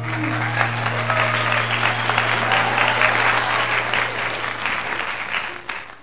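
Crowd applauding and cheering, with a steady low hum underneath; it fades out near the end.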